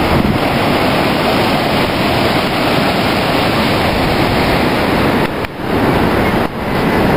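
Loud, steady rush of ocean surf mixed with wind on the microphone, dropping away briefly twice near the end.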